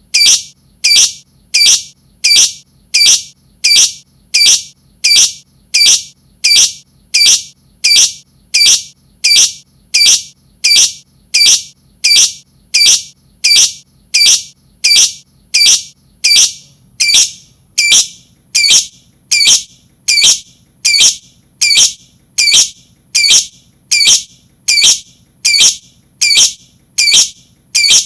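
Lovebird giving short, shrill, high-pitched calls repeated at a steady, even pace of about one and a half a second. This is a looped lure call (pancingan) meant to get other lovebirds calling.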